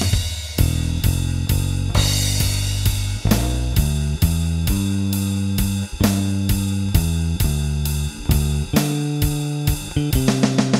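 Electric bass guitar, a Squier Mustang Bass with a Nordstrand angled-pole pickup fed through a Seymour Duncan Studio Bass Compressor, playing a bass line of sustained low notes along with a drum kit keeping a steady beat. A quick drum fill starts near the end.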